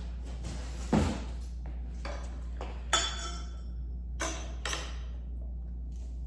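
Animatronic base parts being handled and fitted together: a dull thump about a second in, a sharp clink with a brief ringing tone near three seconds, then two lighter knocks, over a steady low hum.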